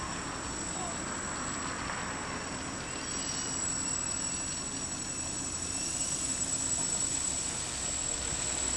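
Small quadrocopter's electric motors and propellers buzzing overhead, the pitch wavering slightly as it manoeuvres, growing a little louder about six seconds in.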